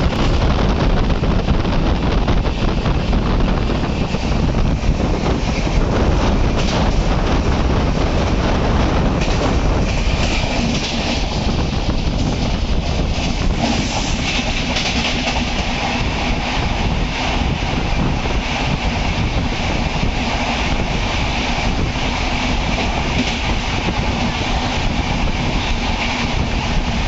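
Rail running noise from the moving Gondwana SF Express, mixed with a red passenger train and then a long train of open freight wagons passing close by on the adjacent track. The noise is loud and continuous and grows hissier and brighter from about ten seconds in.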